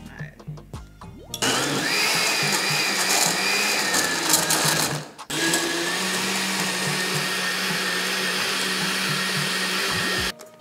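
Countertop blender with a glass jar blending frozen fruit chunks in coconut milk. It starts about a second in, stops briefly around the middle, then restarts and runs steadily until it cuts off just before the end.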